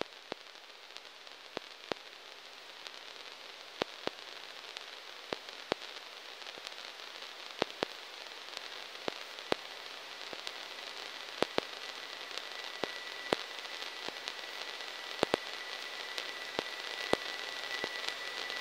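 Crackling static: a hiss that slowly grows louder, with irregular sharp clicks and pops. A faint, high, steady tone joins about two-thirds of the way through.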